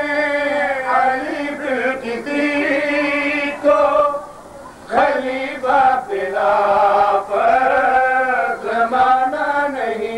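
A man chanting lines of a qasida, an Urdu-Punjabi devotional poem, in long held, wavering notes, with a short break about four seconds in.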